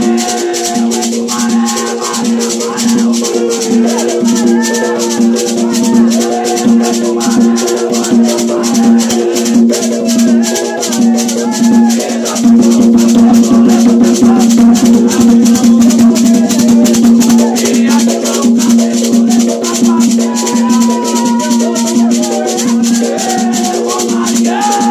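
Afro-Brazilian ritual music for a Quimbanda gira: voices singing a ponto cantado over a steady beat of shaken rattles, with a sustained low drone underneath.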